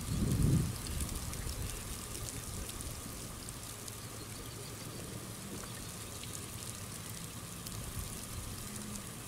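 Light rain falling, a steady soft hiss with faint scattered drop ticks. A brief low rumble, the loudest sound, comes in the first second.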